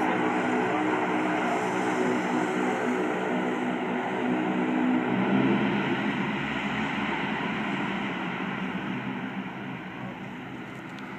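C-130 Hercules's four turboprop engines running, a steady propeller drone. It swells to its loudest about halfway through, then fades away toward the end.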